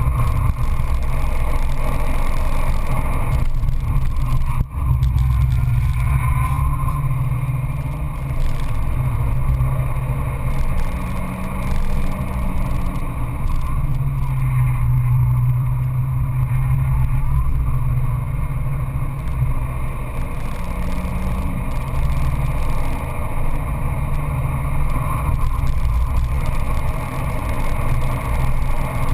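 The Peugeot 206 GTI S16's 2.0-litre four-cylinder engine pulls hard inside the cabin at racing pace, with road noise. Its note rises and falls with the revs, and it dips briefly in loudness about five seconds in.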